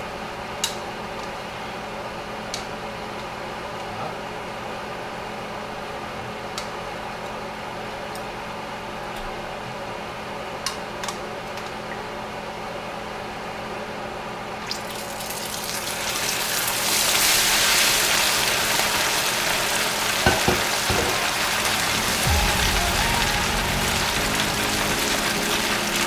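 Hot cooking oil in a frying pan bursts into a loud, steady sizzle about fifteen seconds in, as the seasoned perch go in to fry. Before that there is only a low steady hum with a few light clicks of utensils. A few dull knocks come a little after the sizzle begins.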